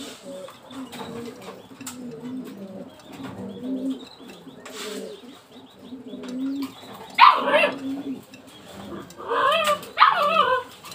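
Domestic pigeons cooing in a loft, low repeated coos throughout. A dog barks about seven seconds in and again several times near the end, louder than the cooing.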